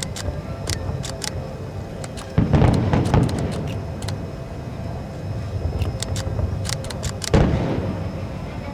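Aerial fireworks going off: two heavy booms, about two seconds in and again near the end, each fading out, with many sharp pops and crackles between them.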